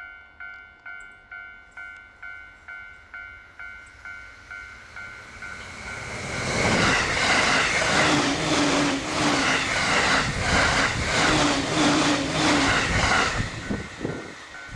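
Japanese level-crossing alarm ringing its repeating electronic ding, about two a second. A JR Jōban Line train then comes on and passes at high speed for about seven seconds, loud, with a rhythmic clatter of wheels over the rail joints that drowns the bell. The bell is heard again near the end.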